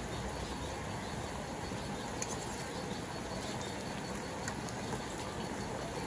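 Pork and onions cooking in sauce in a metal wok, a steady sizzle, with a light clink of metal tongs against the pan a couple of times.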